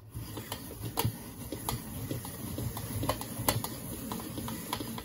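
Hand-cranked apple peeler-corer being turned, its mechanism and blade making quick, irregular clicks and rattles as it pares the peel from an apple.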